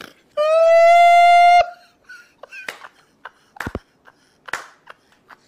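A man laughing hard: a long, high-pitched squealing laugh held steady for over a second, then short scattered bursts of laughter and a few sharp claps.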